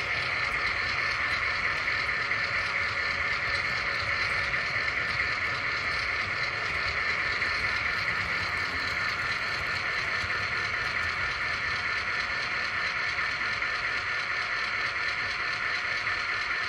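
Model train wagons rolling past close by, their wheels running on the rails in a steady, even clatter.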